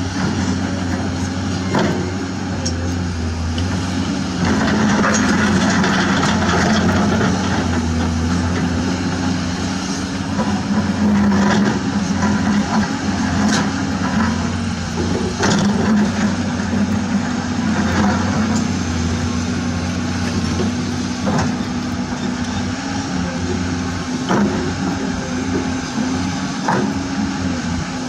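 Remote-control toy dump truck and excavator running, a steady engine-like hum with scattered clicks and scrapes as sand is dug and loaded.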